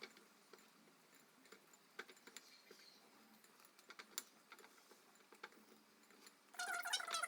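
Faint scattered clicks of a utensil against a mixing bowl as whipped cream is folded into a mascarpone cream. Near the end a louder high, wavering call starts.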